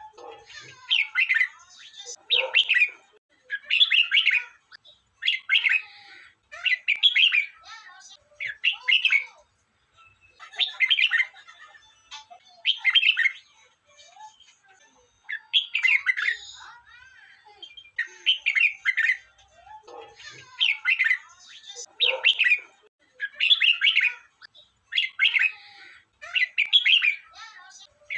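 Red-whiskered bulbul singing: short, bright, warbling phrases repeated about every one and a half to two seconds.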